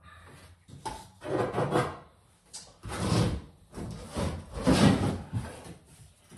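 A series of rough scraping and rubbing strokes from drywall-adhesive work: adhesive being scraped out of a plastic builder's bucket and a plasterboard strip handled against the wall.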